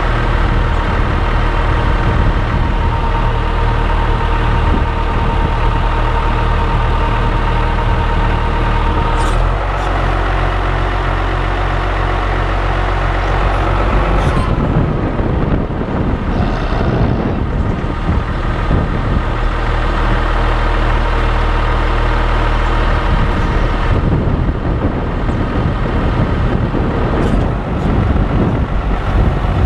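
An engine or motor running steadily, its note changing about a third of the way in and again near the middle.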